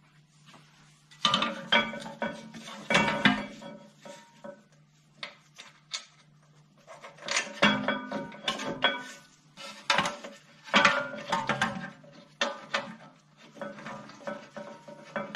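Rear brake caliper carrier being fitted onto the hub behind the brake disc: irregular metal clanks and clinks, some with a short ring, coming in several clusters.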